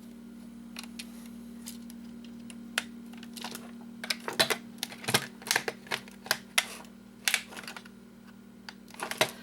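Irregular clicks and clatter of a plastic plug-and-play game case being handled and unscrewed, over a steady low hum.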